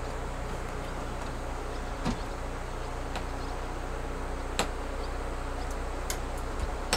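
A few faint, separate clicks of small plastic parts being handled as a battery is fitted into an electronic float light, over a steady low hum.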